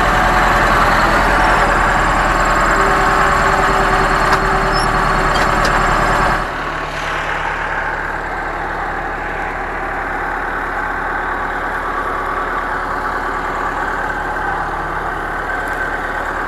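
Perkins diesel engine of an Ostrówek backhoe loader running steadily at idle, loud in the cab at first. About six seconds in it suddenly becomes quieter and goes on running as a steady hum heard from outside the machine.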